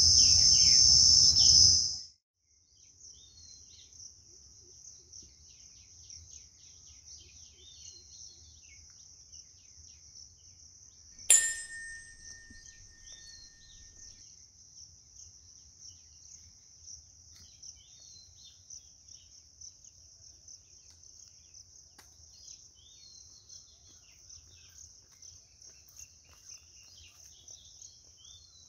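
A loud logo sound for the first two seconds, then a steady high cricket trill with small birds chirping. About eleven seconds in, a sharp click and a ringing ding from a subscribe-button sound effect.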